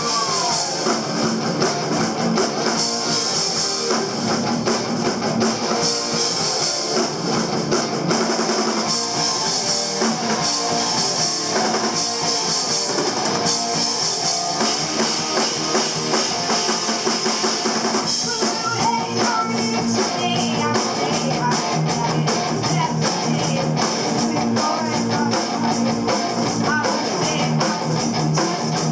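Live rock band playing: electric guitars, bass guitar and drum kit, heard from the audience in a club.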